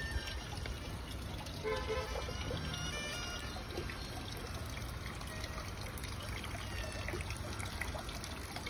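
Water trickling and pouring into a shallow pond, a steady splashing hiss, with soft background music whose notes are clearest in the first couple of seconds.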